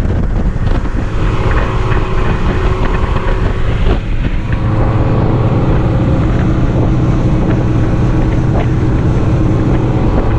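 Boat's outboard motor running steadily under way, with wind buffeting the microphone.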